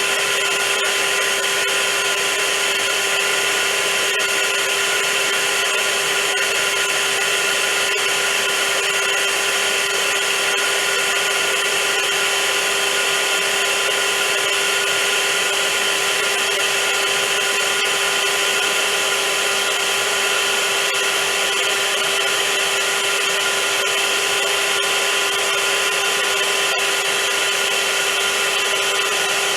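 Vacuum cleaner motor running steadily: a loud, continuous rushing whine with a constant pitched hum, unchanging throughout.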